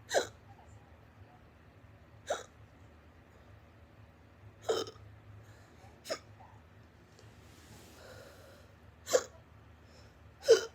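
A person hiccuping loudly: six short, sharp hiccups at uneven gaps of about one and a half to three seconds.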